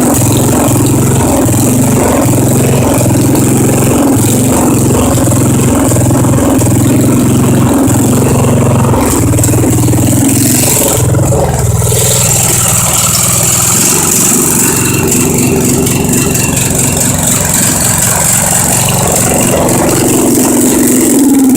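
Craftsman riding mower's engine running, steady for the first dozen seconds or so, then after about fourteen seconds its note drops and turns uneven. The engine has a problem the owner has not yet found; he has seen smoke coming from it.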